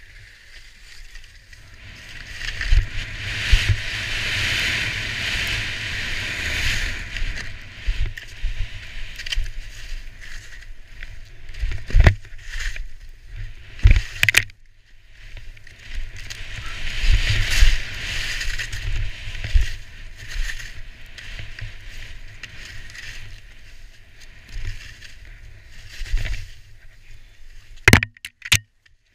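Skis sliding and scraping through snow, the hiss swelling and fading with the turns, over wind buffeting the helmet camera's microphone. A few sharp knocks cut through, one about midway and a couple near the end.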